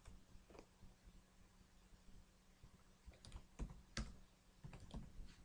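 Near silence with a low hum, broken by a few faint, short clicks of a computer mouse, most of them in the second half.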